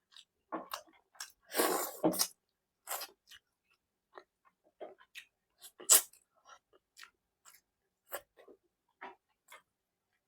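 Close-miked eating sounds of someone chewing a meal of fish curry, egg bhurji and pav: scattered wet mouth clicks and lip smacks, with a louder stretch of chewing about one and a half to two seconds in and one sharp loud smack about six seconds in.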